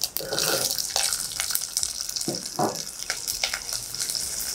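Whole peeled shallots sizzling and crackling in hot oil with mustard seeds and fenugreek in a stainless steel pot, a steady hiss with scattered pops.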